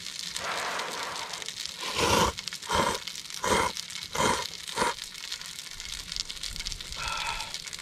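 Person slurping instant ramen noodles with chopsticks: a softer breathy rush, then five loud slurps about two-thirds of a second apart.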